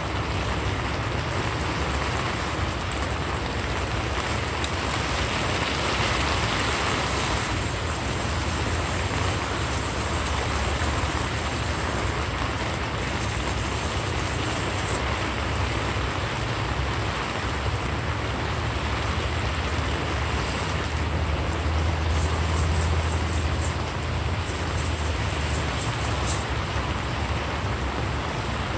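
Steady rushing noise with a low rumble underneath.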